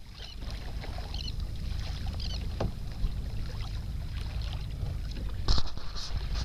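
Choppy sea water sloshing against a plastic fishing kayak's hull under a steady low rumble of wind, with a light knock a little over two and a half seconds in and a short, louder splash about five and a half seconds in.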